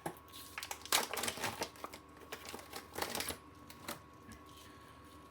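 Plastic wrapping of a filament spool crinkling and crackling as the spool is pulled out of it, in irregular clicks, busiest about one second and three seconds in and dying down after about four seconds.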